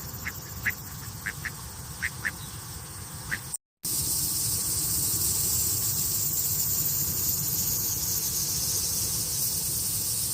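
A run of short, high chirping calls, then, after a brief dropout about three and a half seconds in, a steady hiss that carries on to the end.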